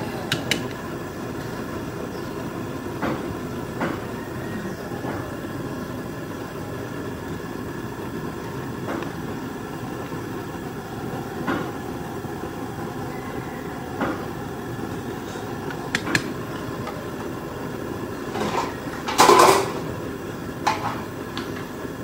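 Scattered knocks and light clatter over a steady background hum, with one louder, half-second clatter near the end.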